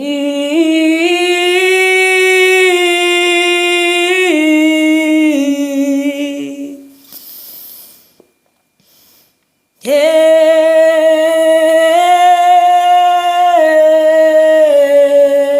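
A woman humming a slow, wordless worship melody in two long held phrases that step gently up and down in pitch, with a breath taken between them about seven seconds in.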